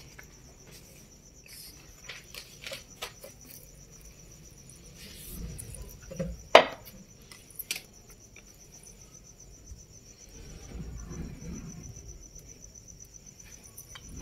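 Crickets chirping steadily in a high, fast-pulsing trill. Over it come scattered soft taps and handling knocks from roti being made by hand, with one sharp knock about halfway through.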